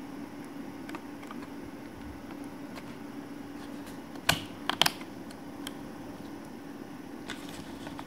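Sharp plastic-and-metal clicks of a 1066 MHz DDR3 SO-DIMM memory module being pressed down into its slot in a 2010 13-inch MacBook Pro. One click comes about halfway through, then two or three quick clicks follow half a second later as the slot's retaining clips snap over the module, with a few faint ticks afterwards.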